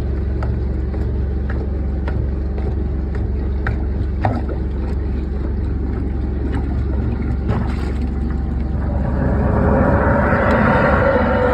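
A steady low motor drone with faint scattered ticks. About nine seconds in, a rushing noise joins it and grows louder.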